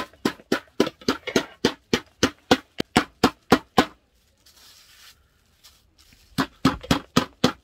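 Metal meat mallet pounding pork cutlets for tonkatsu, wrapped in plastic on a plastic cutting board: a fast, even run of sharp knocks, about four a second. The knocks stop for about two seconds partway through and then start again.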